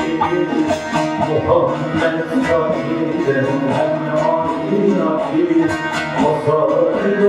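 Several bağlamas (Turkish long-necked saz lutes) played together, a continuous plucked melody.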